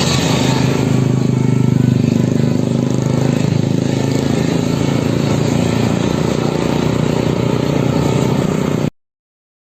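A motor vehicle's engine running close by as a steady low drone with road noise. It cuts off abruptly near the end.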